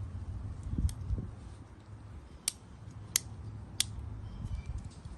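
Sharp plastic clicks, four of them spread over a few seconds, as a windshield wiper blade's clip is worked on the wiper arm. A low rumble runs underneath.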